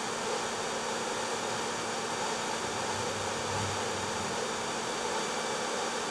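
Hair dryer running steadily, a constant rush of air with a faint hum, used to warm the car's fender panel so the paint won't crack during paintless dent repair.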